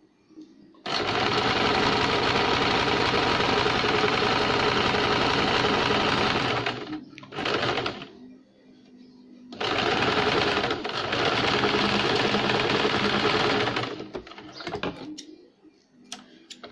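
Electric sewing machine stitching a straight seam in runs: about six seconds of steady running, a short burst, a pause, then about four more seconds. A few faint clicks follow near the end.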